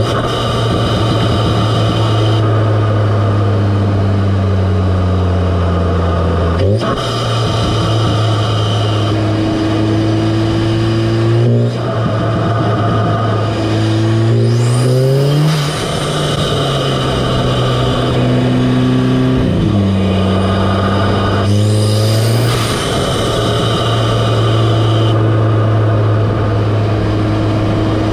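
Audi S3's turbocharged 2.0-litre four-cylinder heard close up through an APR carbon fibre open air intake: a loud induction and engine sound whose pitch climbs with the revs and drops sharply several times. A high whistle climbs along with the revs twice, about halfway through and again a few seconds later.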